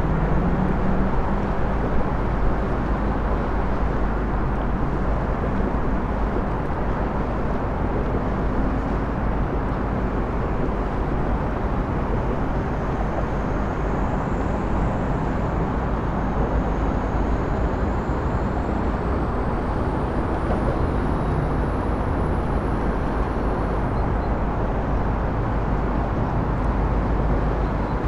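Steady low rumble of a large passenger river cruise ship's engines as it passes close by, with a constant hiss over it. A faint thin high whine wavers in the second half and then cuts off.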